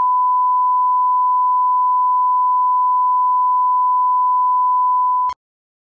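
Broadcast line-up test tone played over colour bars: a single steady pure tone at a thousand hertz, signalling the station is off the air. It cuts off abruptly with a click about five seconds in.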